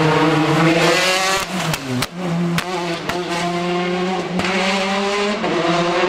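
Rally car engine accelerating hard at full throttle, its pitch climbing, dropping at a gear change about two seconds in and climbing again, with a few sharp cracks from the exhaust around the shift.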